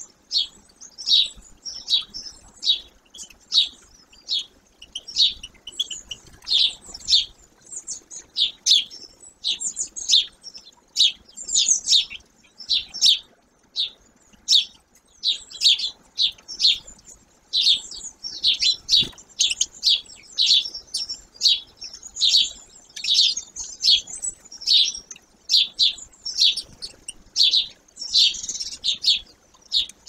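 Small songbirds chirping and twittering in quick, high-pitched notes, several a second and without a break. A single brief tap sounds a little past the middle.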